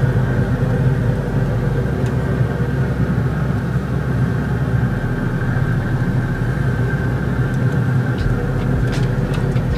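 Pellet grill's combustion fan running with a steady mechanical hum, and a few light clicks near the end.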